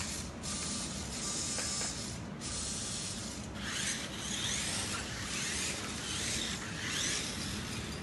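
Toy remote-control rock crawler's small electric drive motors and plastic gearboxes whirring as it drives across a tiled floor, in spurts that break off briefly a few times, with a longer run of rising whines from about halfway.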